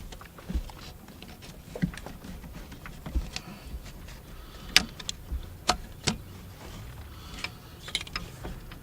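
Scattered clicks, light knocks and soft thumps as a serpentine belt is worked over the pulleys of an EcoDiesel engine by hand. A few sharper clicks come a little past halfway.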